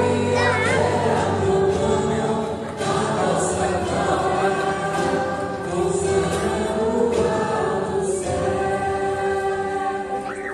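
Many voices singing a church hymn together, in long held notes, fading near the end.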